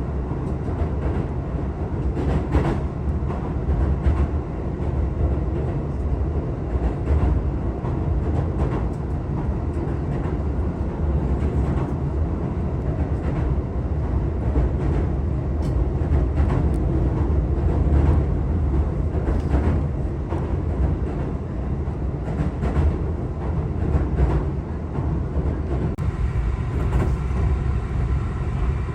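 Steady low rumble of a moving vehicle, with scattered light clicks.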